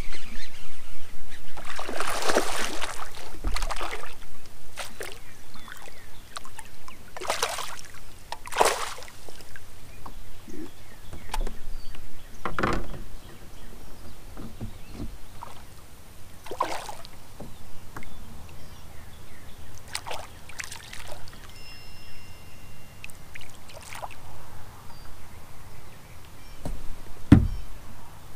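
Kayak paddle strokes splashing and sloshing in the water every few seconds, with water trickling off the blades. A short high tone sounds about two-thirds of the way through, and there is a sharp knock near the end.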